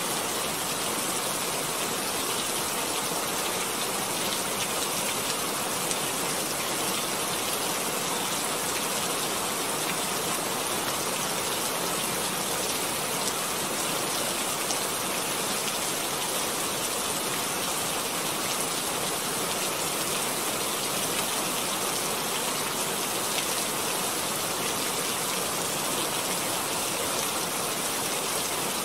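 Steady, even hiss of noise, strongest in the treble, that does not change or pause.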